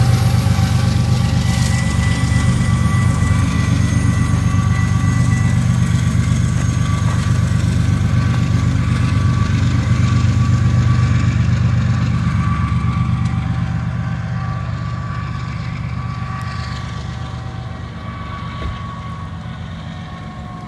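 Container freight train rolling past with a steady low rumble and a few thin steady ringing tones over it, growing fainter over the second half as the train moves away.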